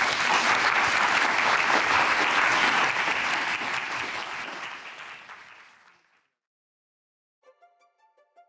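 Audience applauding at the end of a talk, dense at first and then dying away over about six seconds.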